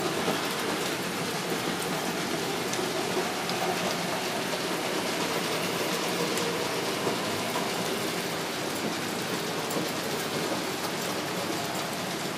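Märklin HO scale model trains running on the layout: a steady, even rushing noise of small wheels rolling on the track and motors running, easing off near the end as the model diesel locomotive comes to a stop.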